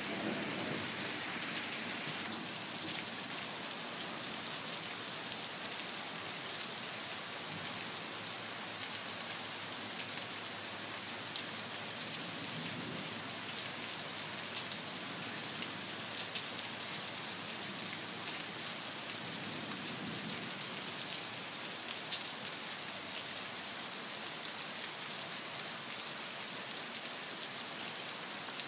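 Steady rain: an even hiss with a few sharp ticks of drops landing close by.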